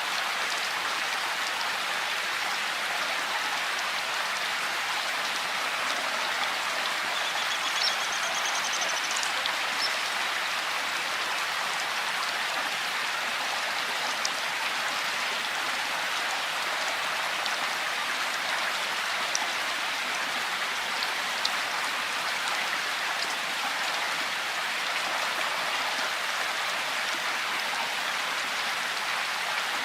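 Steady rain falling, an even hiss with a few separate drops standing out now and then.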